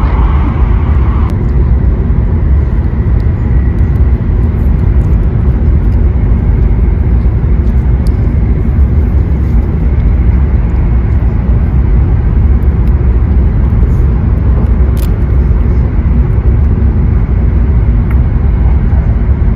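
Steady low rumble of a Shinkansen bullet train running at speed, heard inside the passenger cabin.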